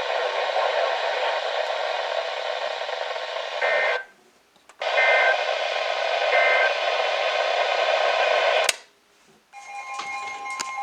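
NOAA Weather Radio receiver hissing with static, with three short bursts of two-pitch data tones, the SAME alert header, coming through it. The audio cuts out briefly twice, the second time with a click, and a steady alert tone starts near the end.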